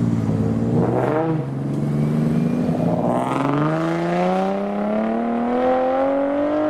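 Tuned cars accelerating away one after another: a Mk4 Toyota Supra pulls off with a gear change about a second in, then a second modified coupe follows, its engine note rising steadily as it accelerates hard through a single long gear.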